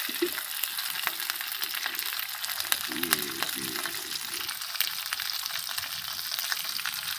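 Food frying in hot oil: a steady sizzle with many small pops and spatters.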